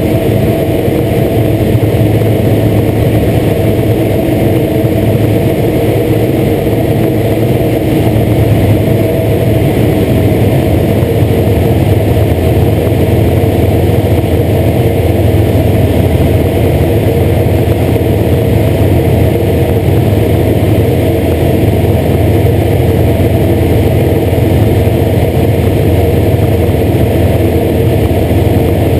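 Light aircraft's piston engine and propeller running steadily in level flight, an even, unchanging pitch with air rushing past the airframe.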